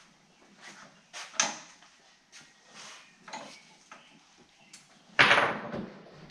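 Scattered light clinks and knocks of tools and metal parts being handled, with one louder, longer clatter about five seconds in.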